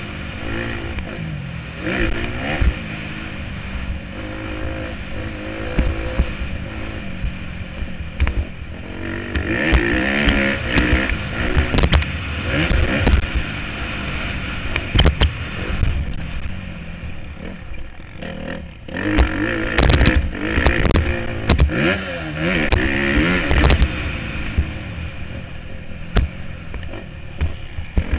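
Motocross bike engine revving up and falling back again and again as the rider accelerates and shifts along a dirt track, heard from a helmet-mounted camera. Sharp knocks and clatter from the bike over the bumps come through between the revs.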